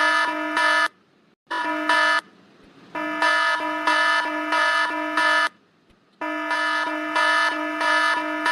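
Mobile phone emergency alert tone from a government cell-broadcast test alert: a harsh, buzzy alarm tone pulsing evenly, sounding in runs of one to two and a half seconds with short breaks between them.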